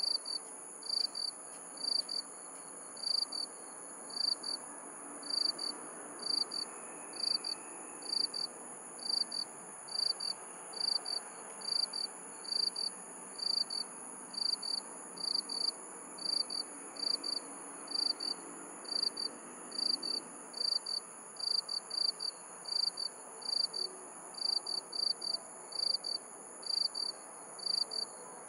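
Night insects calling: one chirps in short high pulses about one and a half times a second, over two steady, higher-pitched continuous trills, with a faint low background hum beneath.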